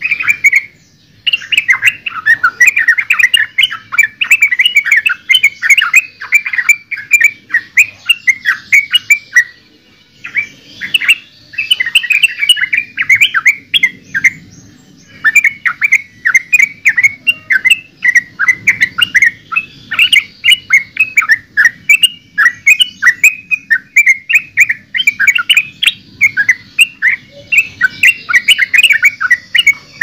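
Yellow-vented bulbul (trucukan) singing and chattering: fast, dense runs of bubbly chirps that break off briefly a few times.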